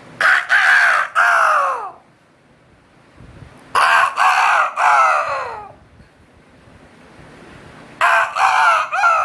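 A person imitating a rooster's crow with the voice, three times: each crow is a run of a few short loud notes ending in a long note that falls in pitch.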